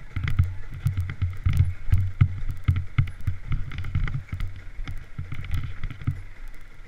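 Dirt bike engine running at low revs in uneven pulses while the bike rolls over a bumpy trail, with frequent sharp rattles and knocks from the bike over the rough ground.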